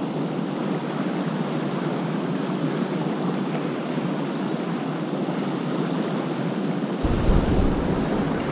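Steady rush of water pouring out under an open dam spillway gate and running past in the river. About seven seconds in, a low wind rumble on the microphone joins it.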